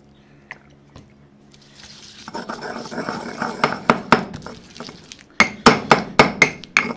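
Stone mortar and pestle (molcajete) crushing garlic cloves with salt and olive oil into a paste: a wet grinding scrape starts a couple of seconds in, then sharp knocks of the pestle come at about three a second, loudest near the end.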